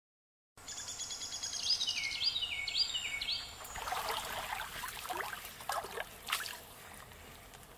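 A songbird sings a quick run of about six down-slurred notes over the trickle of a shallow stream, starting about half a second in. The bird then stops, and the stream carries on trickling and splashing lightly.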